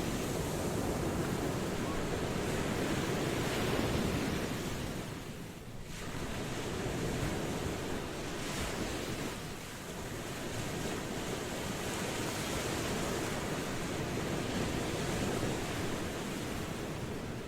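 Ocean waves washing onto a shore in a steady surf, the rush swelling and easing as each wave breaks and draws back, with a little wind.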